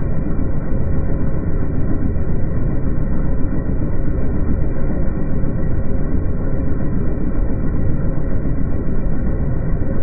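Allis-Chalmers 7030 tractor running steadily, hitched to a John Deere 566 round baler, while the baler's tailgate swings shut after ejecting a bale.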